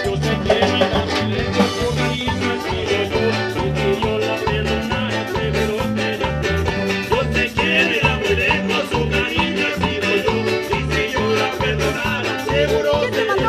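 A live band playing upbeat Latin dance music, with a steady beat and a bass line that repeats in short, even notes.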